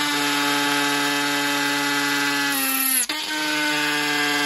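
Cordless drill motor whining steadily as a multi-purpose masonry bit bores into a clay brick. About three seconds in, the motor's pitch sags and it stops for a moment, then spins back up and runs on steadily.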